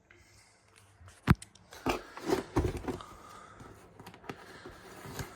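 Cardboard and plastic packaging of a Hot Wheels track set being handled and opened: a sharp click about a second in, then crinkly rustling and scraping, and another click later on.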